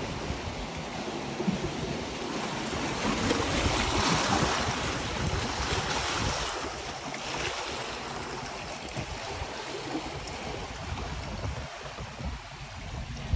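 Small waves washing over the dark boulders at the water's edge, swelling loudest about four seconds in, with wind rumbling on the microphone.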